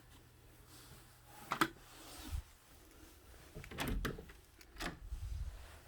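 A few scattered sharp knocks and clicks, three of them clearly stronger, with soft low thuds between them, in a small room.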